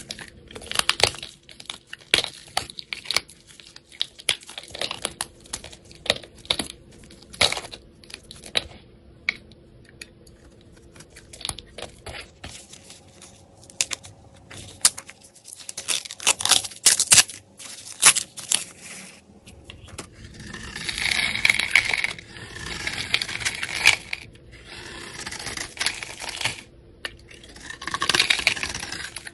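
A metal blade cutting and scraping through dry soap bars: many crisp crackles and snaps as the brittle soap breaks and crumbles, then longer rasping scrapes as soap is shaved off in curls in the later part.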